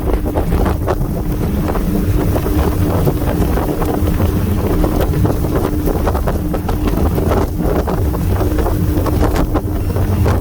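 Wind buffeting the microphone over the steady drone of twin Yamaha F300 V6 outboards running at speed on a tritoon, with water rushing past the hull. The engine note holds one steady pitch with no revving up or down.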